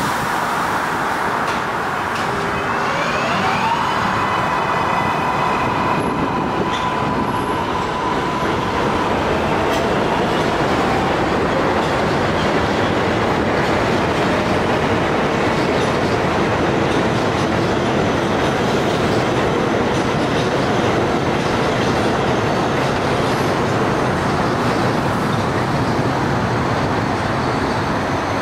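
R142A subway train pulling out on elevated track. Its electric propulsion whines, rising in pitch for about a second and then holding one steady tone for several seconds before fading, over a continuous rumble of wheels on the rails.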